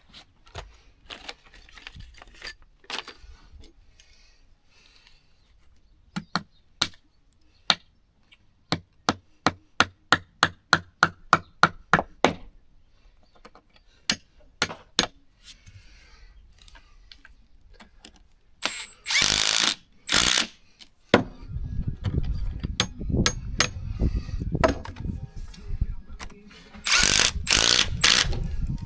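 Nails being driven into a timber wall plate: scattered knocks, then a quick run of about fourteen hammer blows at roughly four a second. Later come two loud bursts from a power tool, each a second or two long, with a low rumble between them.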